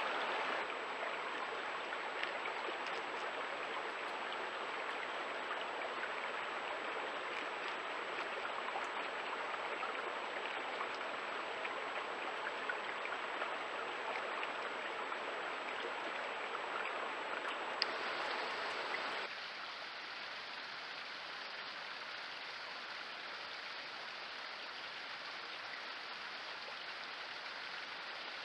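Shallow stream running over rocks, a steady rush of water picked up by a trail camera's microphone. About nineteen seconds in it drops slightly in level and sounds duller.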